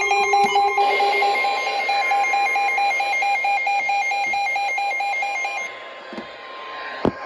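Emergency alert tones: fast electronic alarm beeping over a steady high tone. The beeping stops about six seconds in, and the steady tone cuts off a second later with a click.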